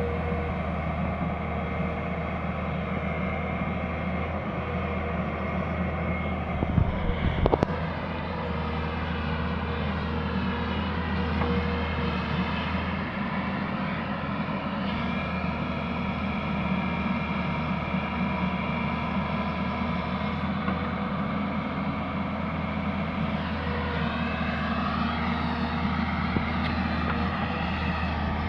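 Tata Hitachi excavator's diesel engine running steadily, its note rising and falling in places as the machine works. A short burst of sharp knocks comes about seven seconds in.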